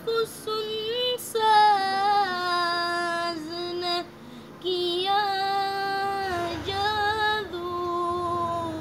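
A boy's solo voice chanting an Urdu poem unaccompanied, drawing out long held notes that waver in pitch. There is a pause of about a second midway.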